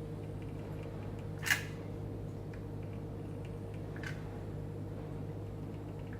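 Steady low hum of room noise, with one sharp click about one and a half seconds in and a softer click near four seconds.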